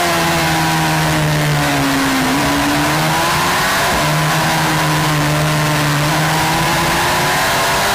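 On-board sound of a Suzuki GSX-R600 racing motorcycle's inline-four engine with rushing wind. The engine note falls as the bike slows, steps up briefly about two seconds in, then climbs steadily from about four seconds in as the rider opens the throttle.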